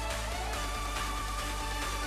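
Electronic dance music with a steady beat.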